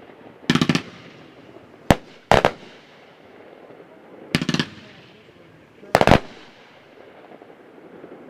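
Fireworks going off in about five separate bursts, one every second or two. Each is a quick cluster of sharp cracks, with a fading echo after it.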